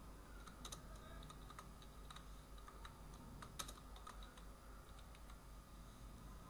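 Faint, irregular key clicks of a computer keyboard as code is typed, a few keystrokes at a time with short gaps between them.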